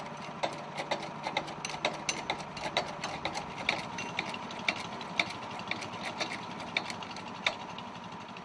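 A small engine running steadily at idle, with many irregular light clicks and knocks over it.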